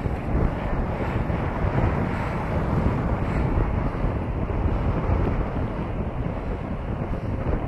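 Wind buffeting the microphone of a camera carried on a moving bicycle: a loud, fluttering low rumble with no clear tones.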